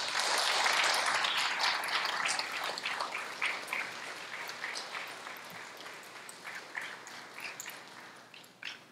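Audience applauding, loudest at the start and thinning out into scattered claps that die away near the end.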